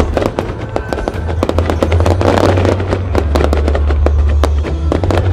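Aerial fireworks bursting in rapid succession: many sharp bangs and crackles over a steady low rumble.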